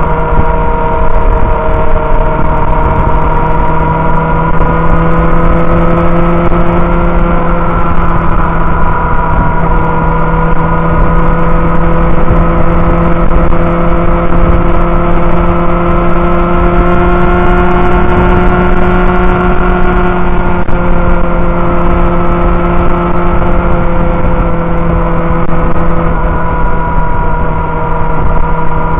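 Inline-four sport motorcycle engine cruising at a steady highway speed, its pitch drifting slightly up and down with small throttle changes, heard from the bike itself with wind rushing over the microphone.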